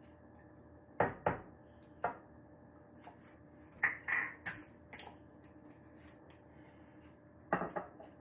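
A series of sharp clinks and knocks from a glass bottle and a metal teaspoon being handled over a glass on a kitchen counter while measuring apple cider vinegar. The loudest come about a second in, around four seconds in, and near the end.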